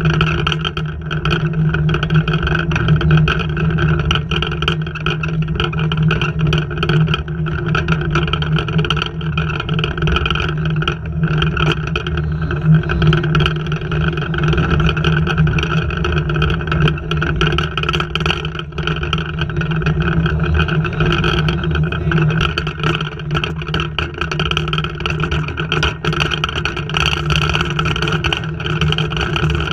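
A loud, steady drone holding several fixed pitches, unchanging throughout.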